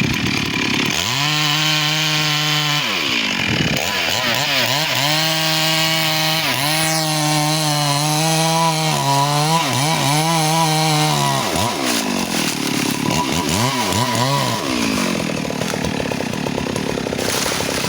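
Chainsaw cutting into a teak log. The engine note holds steady under load and dips in pitch again and again as the chain bites, then wavers and eases off about twelve seconds in.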